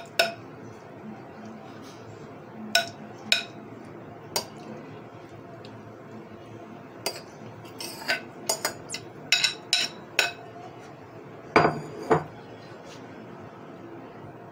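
Metal spoon clinking and scraping against ceramic bowls as chickpea chaat is scooped from one bowl into another. The sharp clinks are scattered at first and come thickest between about seven and ten seconds in. Two heavier knocks follow about twelve seconds in.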